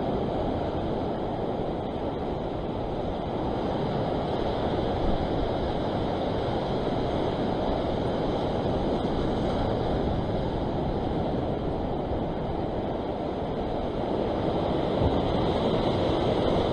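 Sea surf washing and breaking around a rock ledge, a steady rush of water that grows a little louder near the end.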